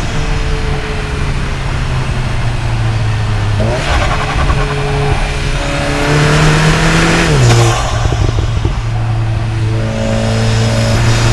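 Stage 1 tuned Cupra Ateca's turbocharged EA888 gen 3 four-cylinder engine pulling hard, heard through microphones at the intake and the exhaust. The engine tone drops in pitch in steps three times, and a high turbo whistle rises twice.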